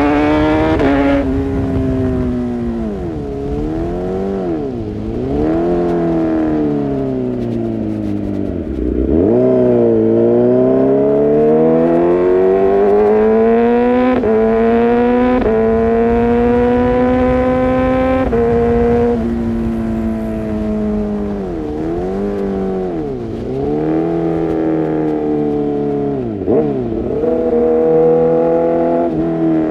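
Kawasaki ZX-6R inline-four through an Arrow Pro-Race exhaust, accelerating and shifting repeatedly. The engine note climbs, dips sharply at each gear change, and climbs again, with one longer pull near the middle.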